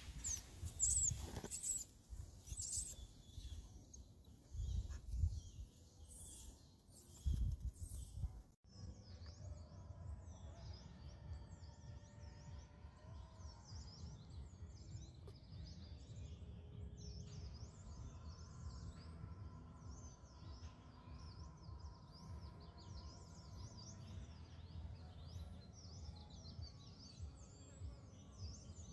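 Small birds chirping and twittering all through, over a steady low rumble. In the first third there are louder high shrill sounds and a few heavy thumps, ending in a sudden cut.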